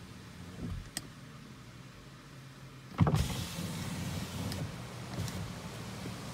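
Car's electric power window motor running as the side window glass lowers, starting with a sudden thump about three seconds in. As the glass opens, a steady hiss of outside wind comes in under the motor's hum.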